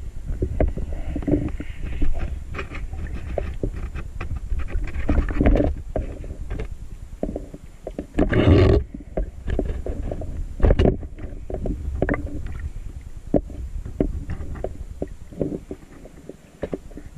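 Muffled underwater noise picked up by a camera moving through shallow water: a low rumble of churning water with many irregular clicks and knocks, and a louder rush of water about eight seconds in.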